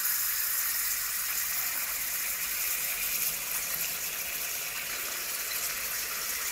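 Liquid oxygen boiling off in a glass beaker, a steady hiss with a gushing, watery sound.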